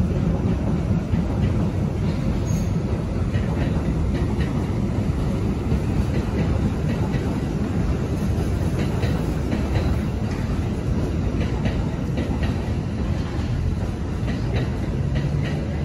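Subway work train of flat cars rolling past, its wheels clicking over rail joints over a steady low rumble.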